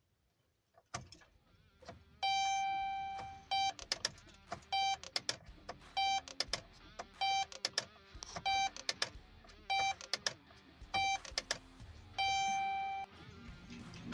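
Electronic beeping: one long beep, then short beeps evenly spaced about every second and a quarter, then a long beep again near the end, with sharp clicks between them.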